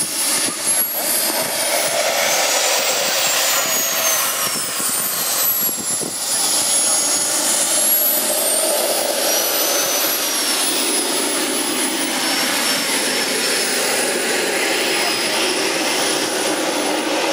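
Model aircraft engines running, a high whine that slowly rises and falls in pitch over a steady rushing noise.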